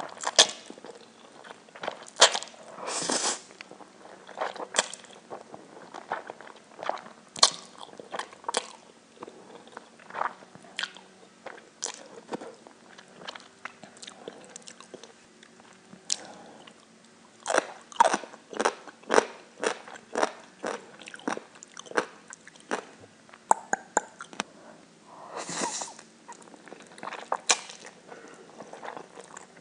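Close-miked eating: irregular sharp, crisp bites and crunches with chewing between them, a few longer crackly crunches near the start and again near the end.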